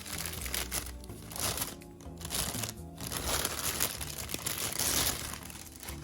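Packaging crinkling as it is handled during an unboxing, in several bursts that are loudest about halfway through, over background music.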